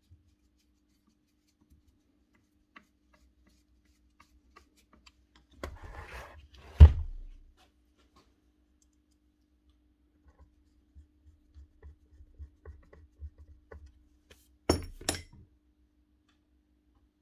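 Handling of a Bosch GSH4 demolition hammer during reassembly on a workbench: small clicks and taps of a screwdriver and screws, a rustle then one loud clunk about seven seconds in as the hammer body is moved on the bench, and a sharp double knock near fifteen seconds.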